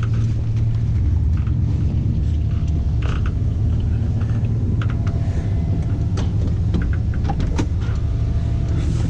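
Steady low engine rumble, like a vehicle running at idle, with scattered light clicks and knocks over it.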